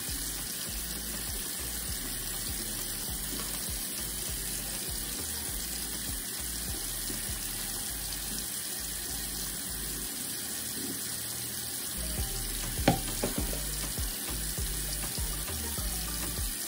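Bathroom faucet running steadily into the sink basin while a wet wig is rinsed over it. From about twelve seconds in, a few sharp knocks and splashes from handling.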